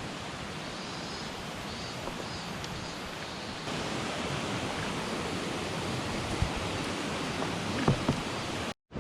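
Steady rush of a mountain stream, with a few light knocks in the second half.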